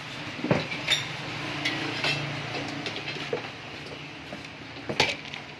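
Metal tools and parts clinking and knocking, about half a dozen separate sharp strikes with the loudest about five seconds in, over a low steady background hum.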